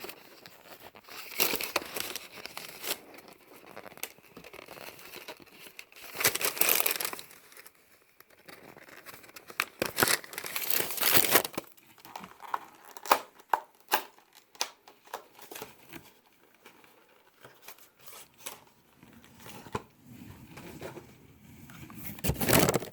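Packing paper and cardboard boxes being crinkled, torn and pulled open by hand in irregular bursts, with a few sharp clicks of the packaging.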